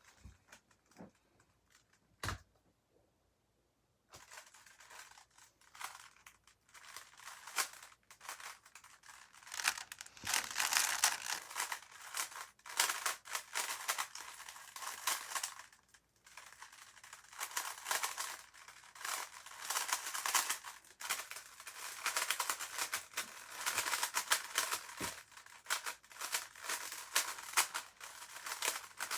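A GAN 356 RS 3x3 speed cube being turned fast through a full solve: a dense, continuous rattle of plastic clicks and clacks from the turning layers. It starts about four seconds in, after a near-quiet start broken by a single click.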